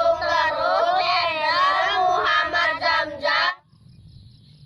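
A high voice singing a short melodic phrase that cuts off abruptly about three and a half seconds in, leaving only faint low background noise.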